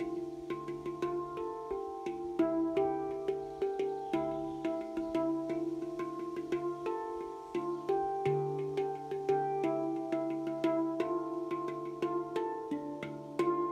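Handpan played by hand: a steady stream of struck steel notes, several a second, ringing into one another over a sustained low note.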